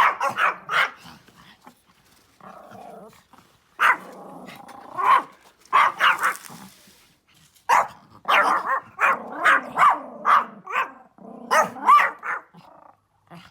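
Small Pomeranian barking at deer it has spotted, in repeated clusters of sharp, quick barks. Lower growls fill the gaps between the clusters.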